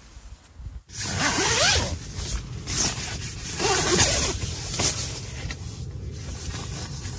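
Door zip of a Trekmates Squall hooped bivvy being pulled in several separate strokes as the door panel is opened, with the nylon fabric rustling.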